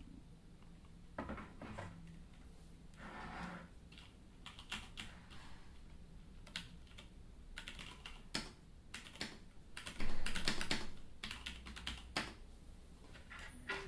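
Keys of a split ergonomic mechanical keyboard being pressed, giving irregular clacks, some single and some in quick runs, with the loudest cluster near the end.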